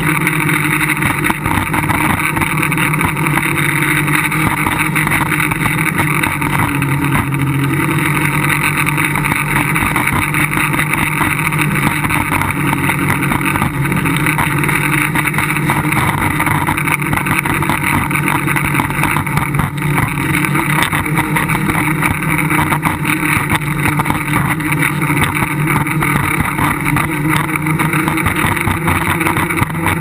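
Tricopter's three electric motors and propellers, heard from the camera on board: a loud, steady buzzing hum with several held pitches that waver slightly as it holds its flight in strong wind.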